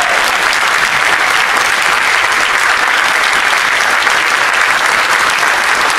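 Audience applauding loudly and steadily.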